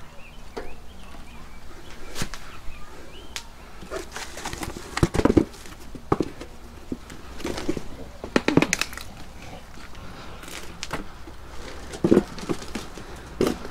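Handling noise from a Coleman CT200U mini bike being shifted by hand onto its wheel: irregular knocks and clunks with rustling of plastic wrap. The sharpest knocks come about five seconds in, again around eight seconds, and near the end.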